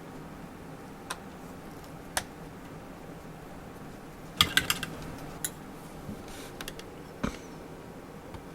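Scattered small clicks and taps from a small jeweler's Phillips screwdriver working tiny screws out of a laptop's plastic screen bezel. There is a quick cluster of clicks about halfway through.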